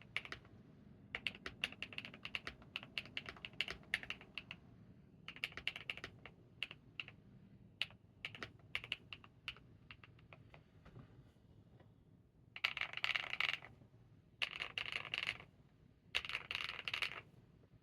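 Monsgeek M2 mechanical keyboard with G-Squared White Warrior switches, KCA-profile keycaps, PET and IXPE switch sheets and Poron case foam, being typed on in bursts with short pauses. In the last third come three fast, dense runs of keystrokes.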